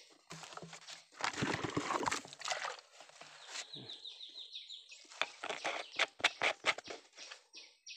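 Digging and scraping in loose soil and roots, a run of scratchy scrapes and sharp clicks. About halfway through comes a brief, rapid series of high chirps.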